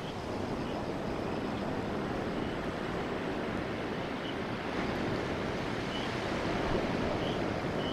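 Steady rushing of sea surf and wind, with the rumble of an approaching Taiwan Railway EMU3000 electric express train growing slightly louder about five seconds in.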